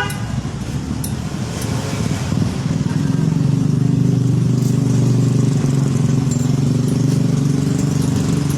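A motor vehicle engine running close by, getting louder about two seconds in and then holding a steady low hum.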